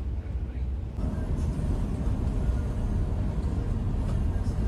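Scania coach on the move: a steady low engine and road rumble that gets a little louder about a second in.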